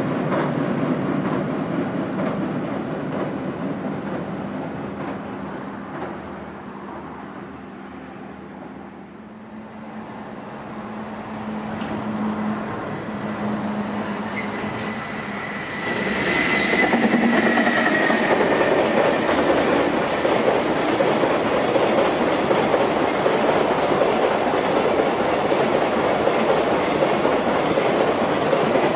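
Freight train running past, its wheels clattering over the rail joints. The rumble fades to a low about a third of the way in, builds again, then jumps up sharply about halfway and stays loud and steady as the container wagons roll by on a steel girder bridge.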